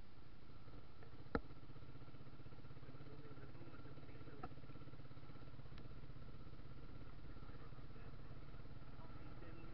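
Motorcycle-taxi engine running steadily while riding along, heard from on the bike, with a single sharp click about a second and a half in.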